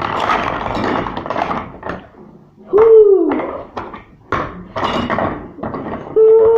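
Plastic toy building blocks clattering and knocking together as they are rummaged and handled, with scattered clicks. About three seconds in comes a loud short wail that rises then falls in pitch, and a steady held wail starts just before the end.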